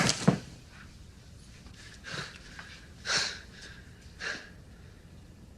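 A person breathing: three short, audible breaths about a second apart, quiet against a near-still background, after a louder sound dies away at the start.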